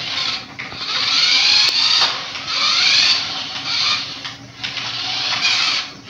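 Small electric motor and gears of a remote-control toy car whirring as it is driven, surging and easing off in short bursts with the pitch rising as it speeds up.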